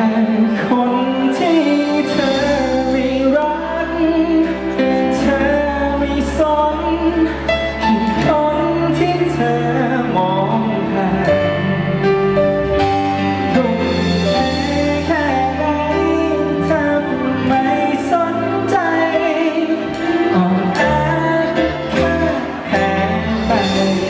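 Live pop-rock band playing amplified in a large hall: acoustic and electric guitars and keyboard, with a bass line and singing.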